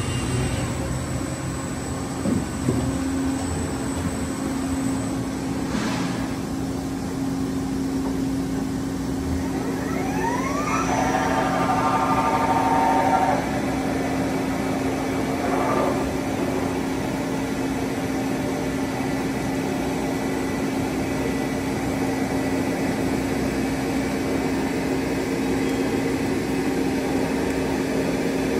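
Nomura HBA-110T-R2 CNC horizontal boring mill running with a steady hum. About ten seconds in, a whine rises in pitch, holds for a couple of seconds and stops.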